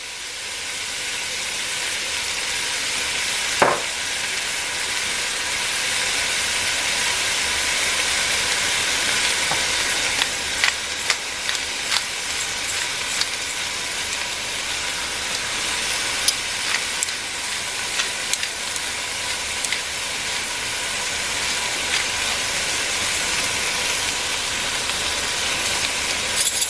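Beef cubes sizzling steadily as they brown in hot olive oil in a Dutch oven, with scattered pops of spitting fat. A single knock about four seconds in.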